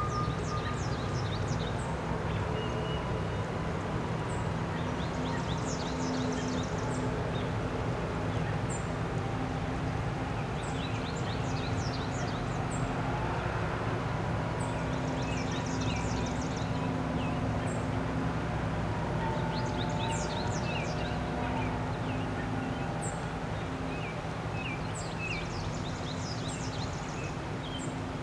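A steady low background rumble with small songbirds chirping and trilling throughout, short high-pitched calls every second or so.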